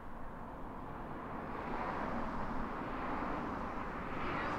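Jet airliner engine noise, a broad rushing roar that swells gradually as the aircraft draws closer.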